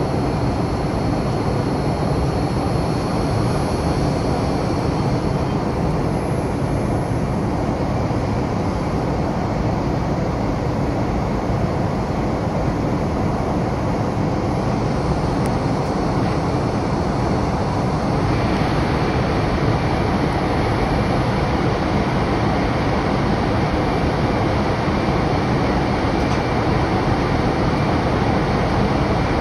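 Steady in-flight cabin noise of a Boeing 787-9 jet airliner: engine rumble and the rush of air past the fuselage, heard inside the cabin. About two thirds of the way through, the tone brightens slightly.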